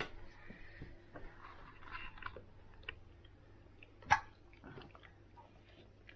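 Soft, faint chewing of banana, with scattered small mouth clicks and a sharper click about four seconds in.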